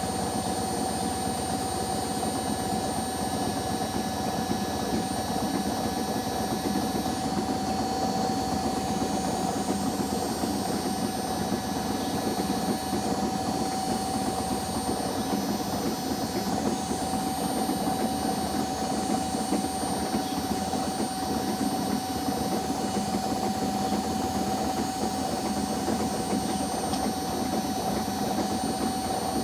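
Washing machines in a spin cycle: a steady motor hum with a constant high whine, running evenly with no change in speed.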